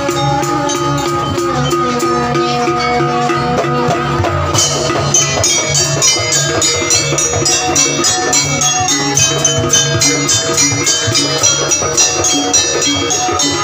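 Live jaranan gamelan music: drums and metal percussion playing a fast, steady rhythm. Bright, high metallic notes join in about four and a half seconds in.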